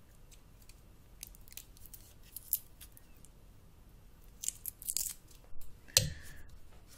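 Small sharp plastic clicks and crackles from handling a phone and picking at its protective plastic film, scattered through, bunching together about four and a half to five seconds in, with a heavier knock about six seconds in.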